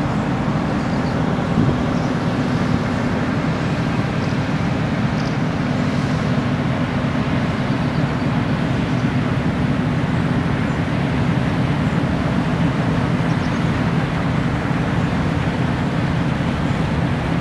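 Steady low drone of a cruise ship's engines and machinery as the ship passes close by, a constant hum with no change in pitch.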